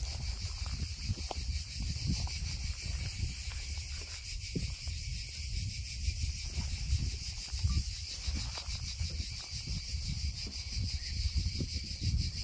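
Insects shrilling steadily in dry summer grassland, a fine, fast, high-pitched pulsing that never lets up. Under it, wind rumbles irregularly on the microphone.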